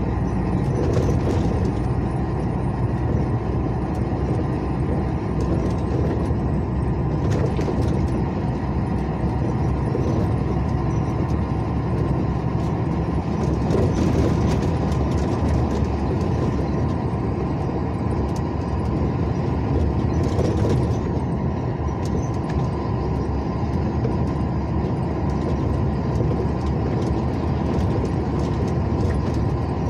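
Steady motor-vehicle engine and road noise, a constant low rumble without separate passes or knocks.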